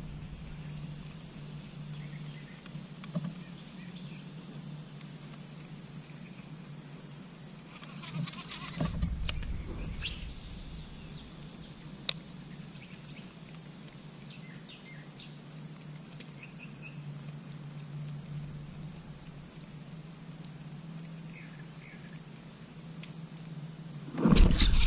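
Steady high drone of summer insects over a low steady hum, with a few faint clicks and a brief low rumble about eight seconds in. A louder noise starts just before the end.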